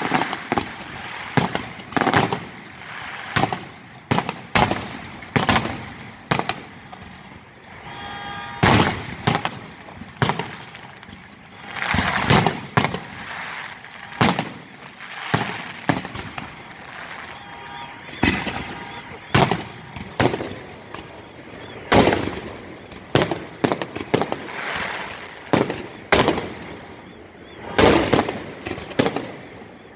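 Festive fireworks salute: a fast, irregular run of shell bursts, bangs and crackles, dozens of them, with short lulls between volleys.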